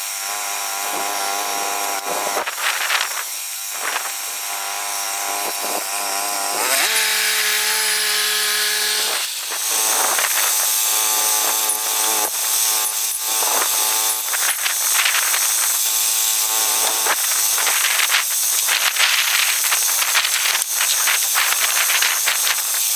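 Woodland Mills HM122 bandsaw sawmill running, its engine and band blade cutting through a red cedar log, with a steady pitched drone over a saw hiss. The pitch shifts about seven seconds in and settles again a couple of seconds later.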